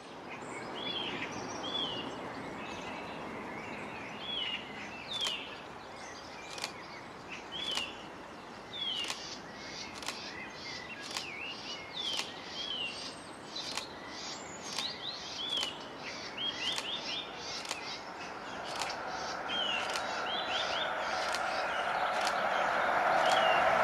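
Small birds chirping repeatedly over steady outdoor background noise. In the last quarter the rumble of an approaching electric-hauled train, led by Class 86 locomotive 86259, rises steadily in loudness.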